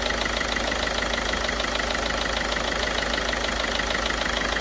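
Ford Figo's turbodiesel engine idling steadily with a fast, even ticking, running during a decarbonising treatment. Its misfire ('missing') is reduced and its original, cleaner engine note is coming back.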